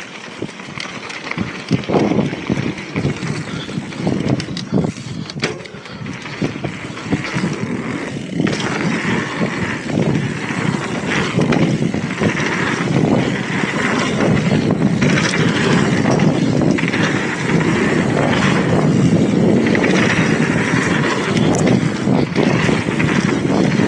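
Mountain bike ridden fast down a dirt trail: wind rushing over the microphone and tyres rolling on dirt, with short knocks and rattles from the bike over bumps in the first few seconds. The rush grows louder from about eight seconds in as speed builds.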